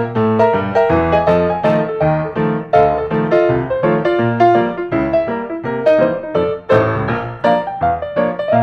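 Background piano music, a quick run of notes played throughout.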